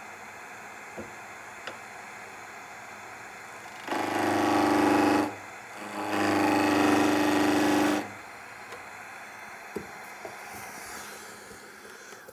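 Skew chisel cutting into a spindle spinning on a wood lathe: the toe of the skew incises the shoulder where the square section turns round, to stop tearout. There are two cuts, about one and a half and two seconds long, each a loud scrape with a steady pitch, over the lathe's quieter steady running.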